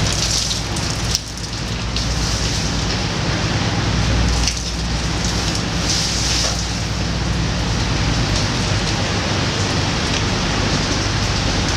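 Rain falling on a ferry's covered deck, a steady hiss, over the low steady hum of the boat's engine.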